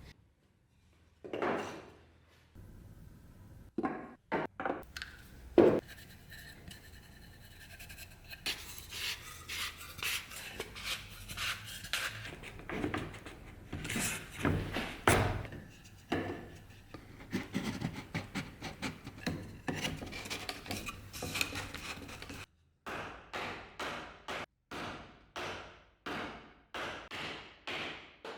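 Wood rubbing and scraping, broken by sharp wooden knocks. Near the end comes a run of even strokes, about two a second.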